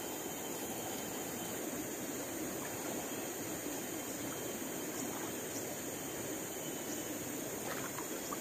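Steady rush of flowing river water over a constant high-pitched insect drone from the surrounding forest.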